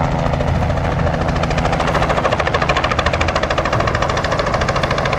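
Low-flying helicopter: its rotor beats in rapid, even pulses over a steady engine drone, the beat getting a little stronger about halfway through as it comes closer.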